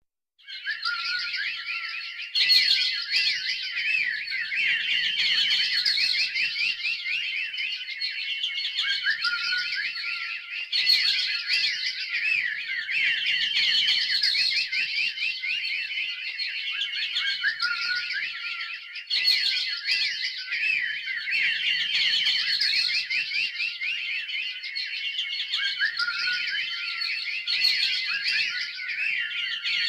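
A dense chorus of many small birds chirping and twittering at once, a continuous stream of quick overlapping chirps with no pause.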